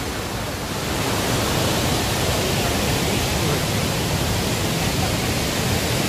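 Bou Sra waterfall in heavy, muddy flood, the water pouring over the falls and churning below as a steady, dense rush of noise.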